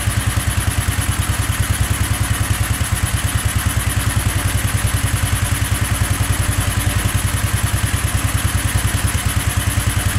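Go-kart's small engine running steadily at a fast idle with an even, rapid pulsing, warming up just after a cold hard start.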